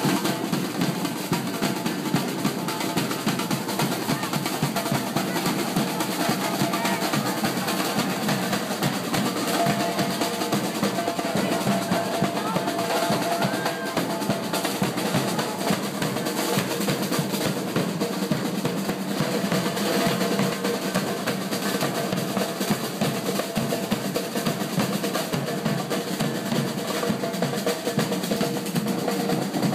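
Parade percussion: snare drums playing rolls over a bass drum, going on steadily without a break.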